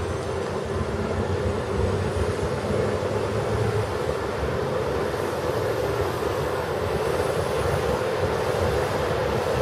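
AgustaWestland AW139 helicopter's twin turboshaft engines and turning rotors running steadily on the ground, with a faint high turbine whine above the engine noise.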